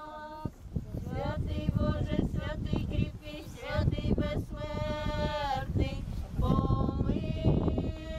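Women's voices singing in long held notes at a funeral, with a wavering passage and a long note that slides down in pitch about halfway through.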